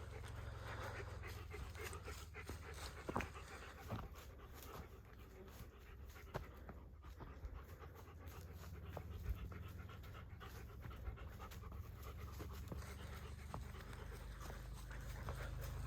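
A hiker's heavy panting breaths with scattered footsteps on the trail, over a low rumble of handling or wind on the microphone.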